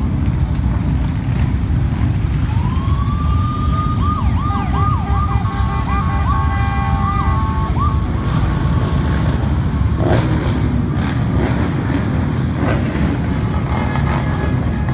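An emergency siren winds up, then yelps in quick rising-and-falling sweeps for a few seconds before dying away, over a steady low rumble of motorcycle and car engines passing on the street.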